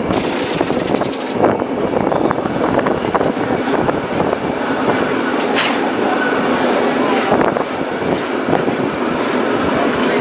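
San Francisco cable car running along its track, a steady loud rumble and rattle from its wheels and running gear on the rails, with a few sharp clicks.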